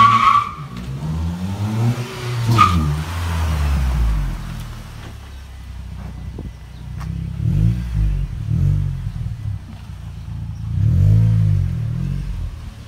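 Mitsubishi Lancer sedan's engine revving as the car drives past and pulls away, rising and falling in several surges. Two brief high squeals come at the very start and about two and a half seconds in.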